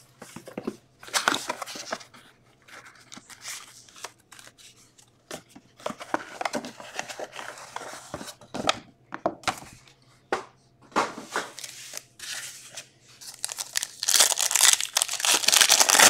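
Plastic wrap and cardboard crinkling and tearing as a box of trading cards is opened by hand, then a foil card pack is torn open; the pack-opening rustle near the end is the loudest part.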